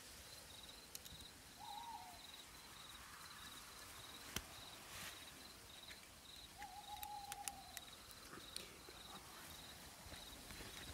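Faint clicks and scrapes of a metal screw-in tree step being twisted by hand into tree bark, under a steady high-pitched pulsing insect chirp. Two drawn-out tonal calls sound, one about two seconds in and a longer one about seven seconds in.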